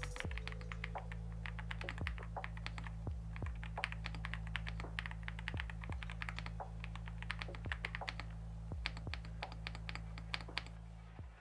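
Typing on a mechanical keyboard with Akko V3 Piano Pro linear switches: quick runs of keystrokes with short pauses, over a steady low drone. Everything stops abruptly at the end.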